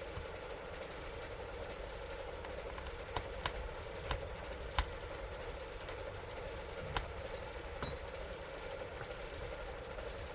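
Scattered light clicks and taps of small hand tools and screws on a laptop's plastic back cover, about a dozen over several seconds, over a steady low hum.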